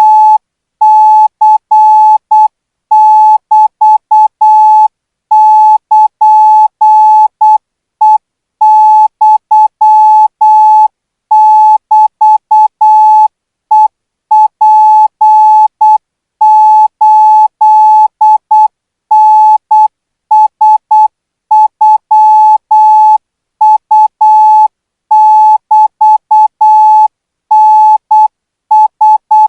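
Thai Morse code practice signal sent at 12 words per minute: a single steady beep keyed on and off in short dots and longer dashes, with brief gaps between letters and words.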